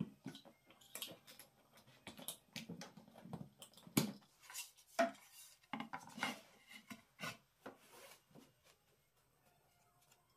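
Plywood being handled on a wooden crosscut sled: irregular knocks, clicks and scraping of wood on wood, with the sharpest knocks about 4 and 5 seconds in and the sounds dying away over the last two seconds.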